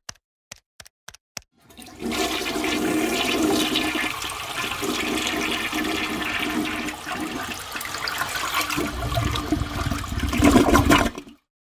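A few quick clicks, then water rushing for about nine seconds, heavier near the end before it cuts off suddenly.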